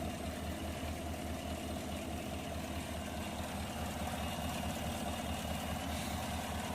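Chevy Tahoe's 5.3-litre V8 idling steadily, with an even low pulsing exhaust beat.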